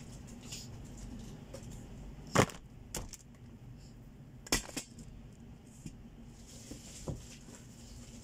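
Boxed goods and packets being set down and packed into a cardboard carton: a few sharp knocks and taps, the loudest about two and a half seconds in and another pair around four and a half seconds.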